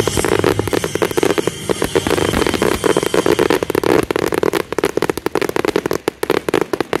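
Fireworks display: a dense barrage of bangs and rapid crackling, thinning to scattered pops and crackles over the last few seconds.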